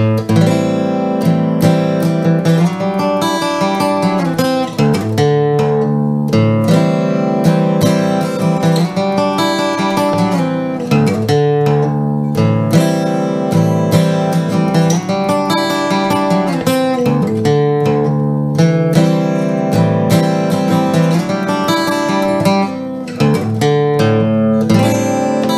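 Emerald X20 carbon-fibre acoustic guitar played in drop D tuning: chords strummed and notes picked, ringing on one after another.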